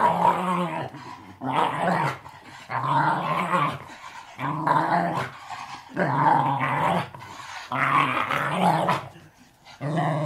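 Wire-haired fox terrier snarling and growling in a run of about seven growls, each roughly a second long, with short breaks between them.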